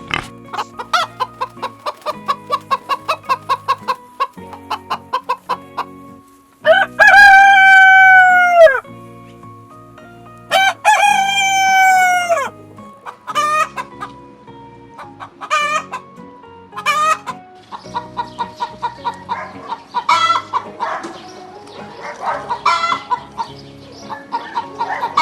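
Chickens clucking in quick short notes, with a rooster crowing twice in the middle: two long, loud calls that drop in pitch at the end. After the crows the clucking and short calls carry on.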